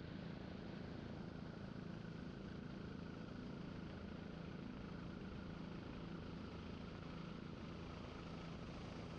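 Helicopter in flight, a steady drone of engine and rotor mixed with wind rush, picked up by a camera mounted outside on the skid.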